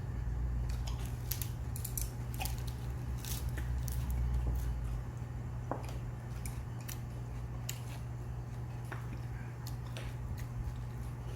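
A person eating goat soup and rice: chewing with scattered small clicks of spoon and chopsticks against the bowls, over a steady low hum.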